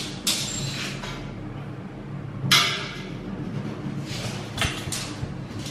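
A few short scrapes and rubs, the loudest about halfway through, with a light knock near the end, as a tape measure and an aluminium straightedge are handled against a tiled wall.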